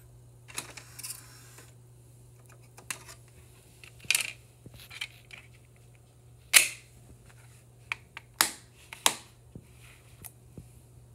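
Irregular clicks and sharp plastic snaps as a DVD is handled at the player and put into its plastic keep case, which is then closed; the sharpest snap comes a little past the middle, with several more near the end.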